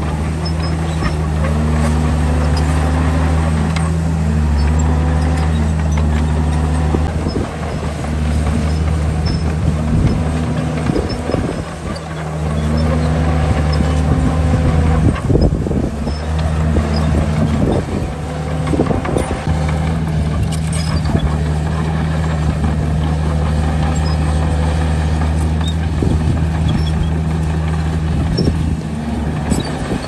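Heavy diesel earthmoving machinery running steadily, with a repeated squeal that rises and falls in pitch. Bursts of metallic clanks and knocks come mostly in the middle stretch.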